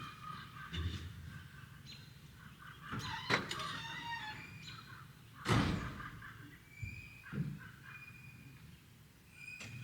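A few knocks and one heavier door-like thunk about halfway through, with birds chirping.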